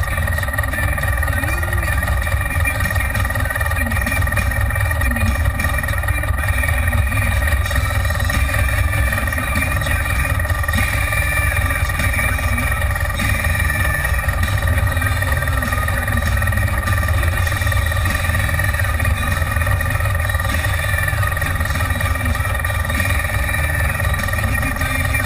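Side-by-side UTV engine idling, heard from inside the cab: a steady low rumble with a constant whine above it, unchanging throughout.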